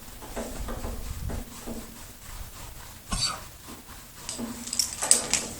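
A horse hiccupping while being groomed: two sudden short jolts, one about three seconds in and a louder one near the end.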